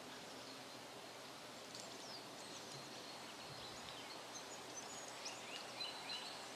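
Quiet room tone: a faint steady hiss, with a few small scattered clicks and rustles from about two seconds in.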